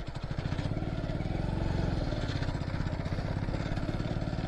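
Motorcycle engine running steadily as the bike is ridden over a rough dirt road, with a fast, even pulse of exhaust beats. It gets a little louder over about the first second.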